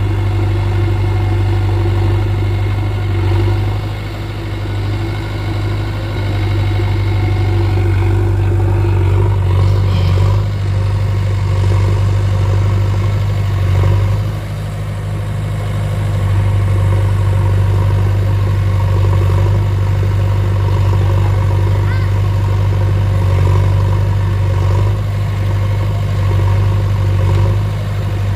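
Diesel engine of a JCB backhoe loader running steadily under working load, with a deep even hum and brief dips and rises in engine speed.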